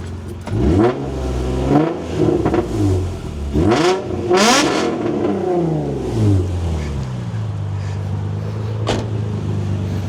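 Nissan 350Z's VQ35DE V6, fitted with an aftermarket Y-pipe and test pipes, revved from idle three times, the last rev the highest and longest, then settling back to a steady idle. It is being revved to test that the new extra-thick Y-pipe gasket does not leak at high RPM, and no leak is heard.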